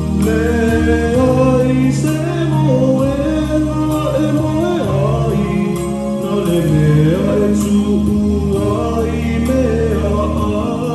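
Voices singing a Christmas carol over held low chords in the accompaniment.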